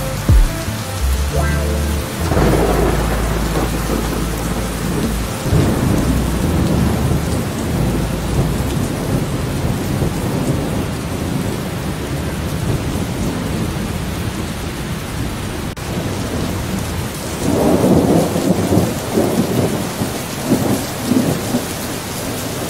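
Steady rain with three rolls of thunder rumbling through it, the longest near the end.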